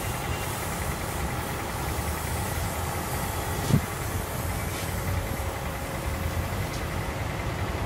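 Diesel tractor engine idling steadily, with a short falling tone about four seconds in.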